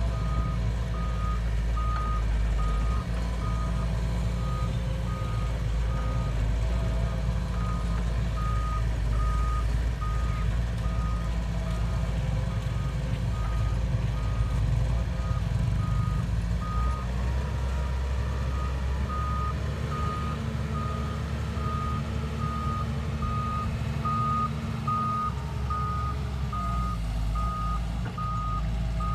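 A heavy machine's reversing alarm beeping steadily in short, evenly spaced high beeps over its engine running with a low rumble. The engine note shifts around the middle.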